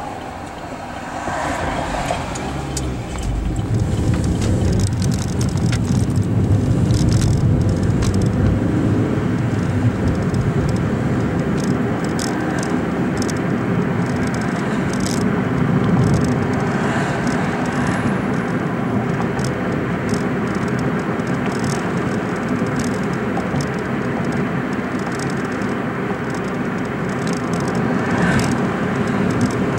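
Car driving, heard from inside the cabin: a steady rumble of engine and tyres on the road, growing louder about three seconds in.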